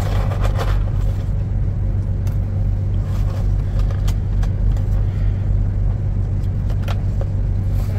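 Steady low rumble of the semi truck's idling diesel engine, with a few light clicks and taps scattered over it.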